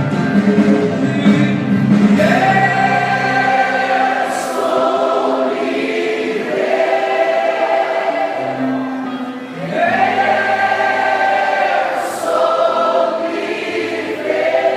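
Congregation and worship band singing a slow gospel worship song together, long held notes from many voices over sustained keyboard or bass chords.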